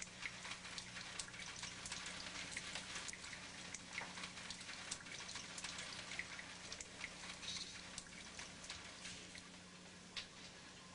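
Shower water running: a faint, even spray with many small patters and drips, over a low steady hum.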